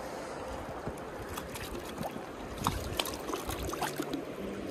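Shallow river water trickling over the shore, with a few short splashes and knocks as a heavy waterlogged log of blackened bog wood is gripped and shifted in the water.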